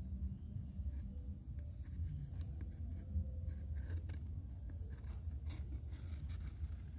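Pencil scratching lightly on a wooden board in short strokes as it traces the outline of a wooden speaker front panel, over a steady low hum.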